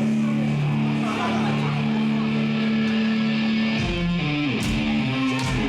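Rock music with electric guitar: sustained held guitar chords for about four seconds, then drums come in with moving notes.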